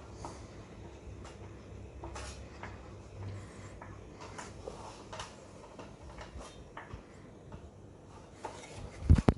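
KDK KY-15D ceiling fan running with a steady low motor hum, under scattered small clicks and ticks of handling; a couple of loud knocks near the end.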